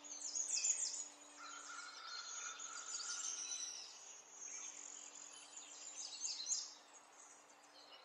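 Many small songbirds chirping and twittering in quick, high notes, over one faint, steady low tone held from the background music.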